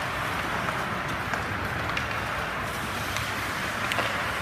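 Ice hockey arena sound during play: a steady noise of skates on the ice and the rink, with a few faint sharp clicks from sticks and puck.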